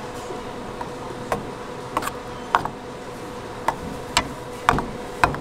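A metal ladle stirring thick red chili sauce in a stainless steel bowl, clicking sharply against the bowl about twice a second in an uneven rhythm, over a faint steady hum.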